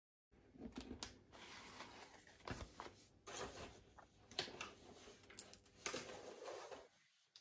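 Faint paper and book handling: coloring books being closed, moved and set down on a table, with soft rustling and a few light knocks.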